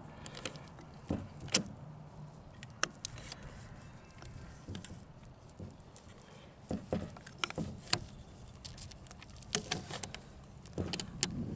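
Irregular metallic clicks and knocks of Mossberg 500 pump-shotgun parts being handled and fitted together during reassembly.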